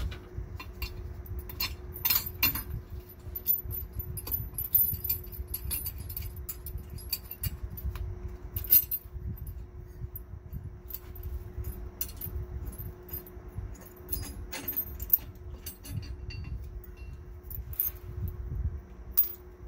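Irregular metallic clinks and taps as steel bolts, nuts and washers are handled and pulled from a steel trac bar bracket on the axle housing, over a steady low hum.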